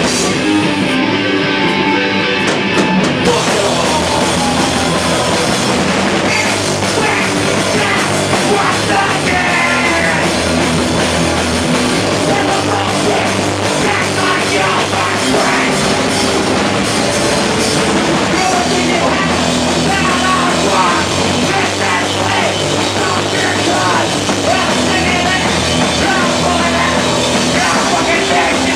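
Rock band playing live: drum kit, guitars and a singing voice, loud and dense.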